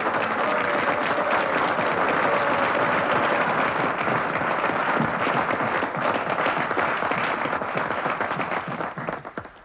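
A large crowd of senators applauding steadily. The applause dies away about nine seconds in.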